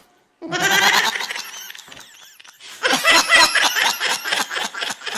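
Baby laughing: a loud burst of laughter starting about half a second in, then a run of quick, repeated laughs from about three seconds in.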